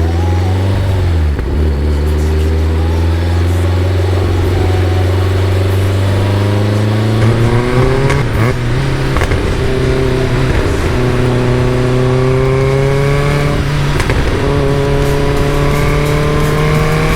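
Caterham Super Seven engine pulling under load, its note climbing steadily, with breaks about seven and fourteen seconds in like gear changes.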